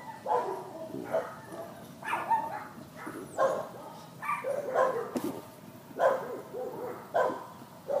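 A man belching over and over in short bursts, one or two a second, from the gas of gulped carbonated water.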